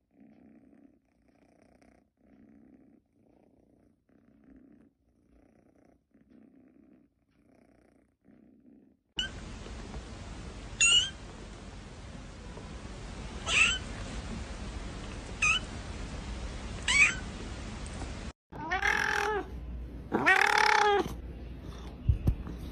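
Soft cat purring that pulses about once a second. A kitten then gives four short, thin, high mews a couple of seconds apart over a steady hiss. Near the end a cat gives two louder, longer meows.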